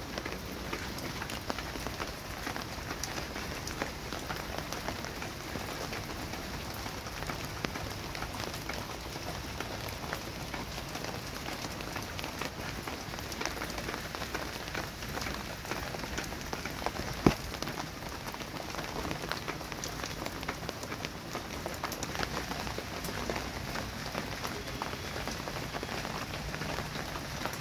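Steady rain falling on a wet terrace and potted plants, a constant hiss dotted with many small drop ticks. One sharp knock stands out about seventeen seconds in.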